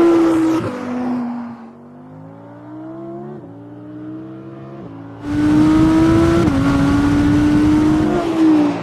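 Audi R8 V10 GT's 5.2-litre naturally aspirated V10 accelerating hard, its pitch climbing and then dropping with several quick upshifts of the seven-speed dual-clutch gearbox. From about halfway a loud rush of noise runs along with the engine.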